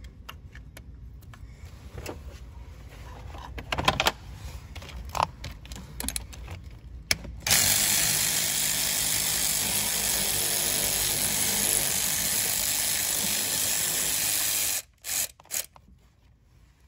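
Clicks and knocks of a hex-bit socket and extension being fitted to a high-pressure fuel pump mounting bolt. Then a power tool spins the bolt out, running steadily for about seven seconds before stopping suddenly, followed by three short blips.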